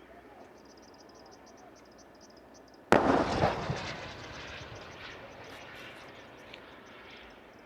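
A single artillery boom: a sudden loud report about three seconds in that rolls and echoes away over the next few seconds.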